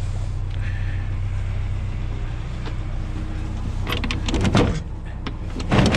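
A vehicle engine idling with a steady low hum, and two short loud bursts of clatter about four and six seconds in as scrap items on the load are shifted.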